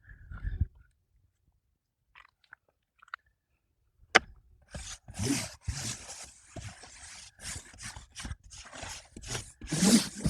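Paintbrush scraping red paint onto cardboard in many quick, scratchy strokes. The strokes start after a sharp click about four seconds in.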